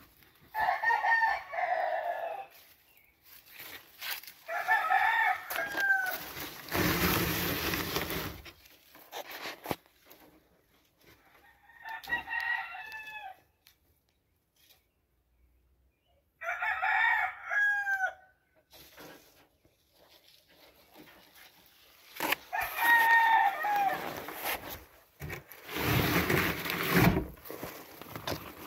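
Game roosters crowing, five separate crows a few seconds apart, each lasting about a second and a half. Two stretches of rustling noise come between them, the second near the end.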